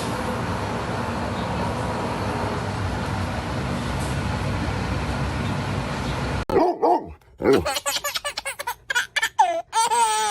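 A steady rushing noise, then, after a sudden cut about six and a half seconds in, a dog's short whining and yelping calls in quick succession, bending up and down in pitch.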